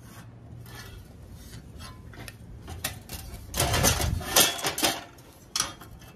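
A metal square and small tools being picked up, set down and slid on steel tubing and a steel welding table: light metallic clinks and scrapes, thickest in a cluster about four seconds in, with one more clink near the end.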